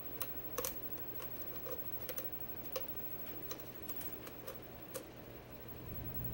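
Faint, irregular clicks of a short hook lock pick lifting and setting the pins inside a Yale pin-tumbler lock under tension, about a dozen small ticks spread unevenly.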